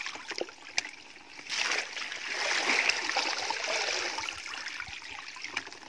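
Shallow muddy water splashing and sloshing as hands work through it among water hyacinth, with small clicks. It gets louder about a second and a half in and eases off near the end.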